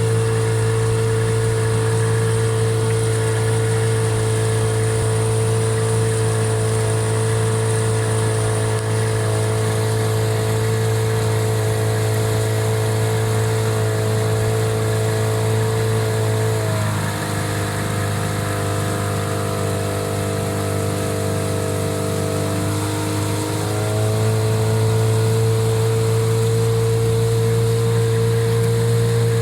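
Hidea 9.8 two-stroke outboard motor running at low revs during its break-in, with the revs dipping slightly about two-thirds of the way through and then picking back up. The owner hears an intermittent ringing noise from it at low revs and counts it a fault.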